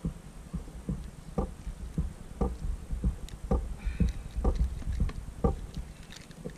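Water slapping against the hull of an inflatable kayak in soft, regular knocks, about two a second, over a low rumble.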